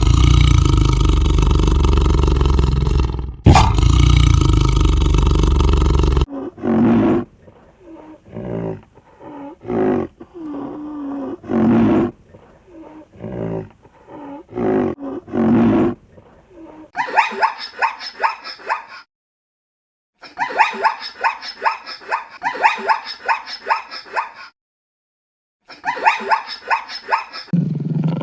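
Animal calls in three different stretches: a loud, rough roar for about six seconds, then a run of short, separate lower calls, then bursts of rapid, high chattering calls broken by two short silences.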